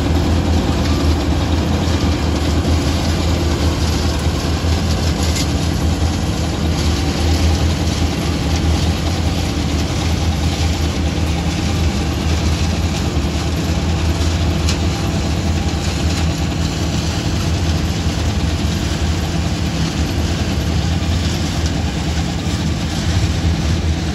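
Kartar 400 Crop Cruiser combine harvester working a crop, its diesel engine and threshing machinery running in a loud, steady drone.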